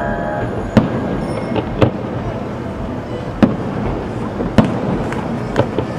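Aerial fireworks shells bursting: about five sharp bangs at irregular intervals of roughly a second, over a steady background of noise.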